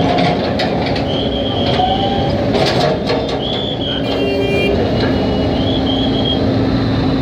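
Backhoe loader's diesel engine running steadily while its bucket tears at corrugated metal sheeting: sharp metal clanks in the first few seconds and high-pitched metal screeches on and off.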